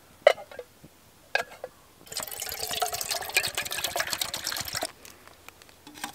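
Two sharp metal clinks as a metal camping pot is set on its stove, then water pouring from a plastic bottle into the pot for about three seconds.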